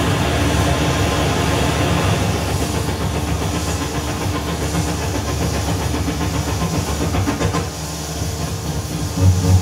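Modular synthesizer noise music: a dense, hissing electronic drone over a low rumble, with one steady tone held underneath. The texture thins out about eight seconds in, and a louder low pulse comes in near the end.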